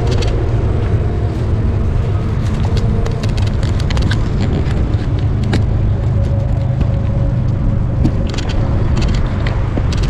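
Steady wind rush on the microphone of a moving bicycle, with road and tyre noise and scattered light clicks from the bike.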